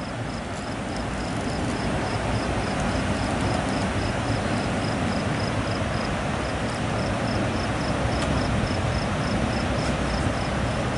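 Steady rush of water pouring through a spillway, with an insect chirping in an even pulse of about three chirps a second.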